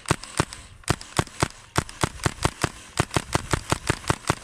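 HPA-powered Tippmann M4 airsoft rifle firing a rapid string of semi-auto shots, about five or six sharp cracks a second at an uneven pace, roughly two dozen in all.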